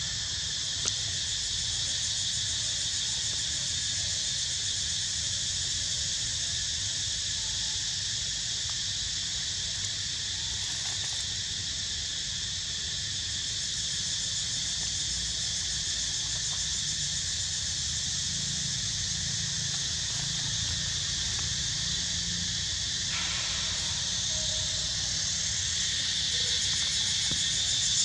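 Steady high-pitched chorus of forest insects, unbroken throughout, over a low rumble.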